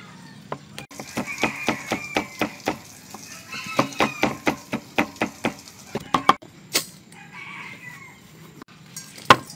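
A knife chopping fresh red chilies on a wooden cutting board, in quick runs of strokes about four a second with short pauses between, then a single loud knock near the end. Chickens cluck in the background.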